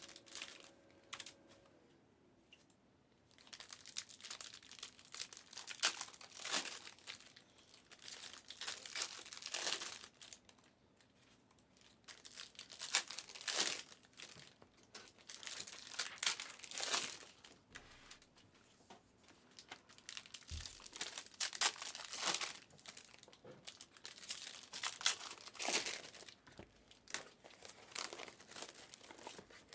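Wrappers of Panini Mosaic trading card packs being torn open and crinkled, in repeated bursts with short pauses between them.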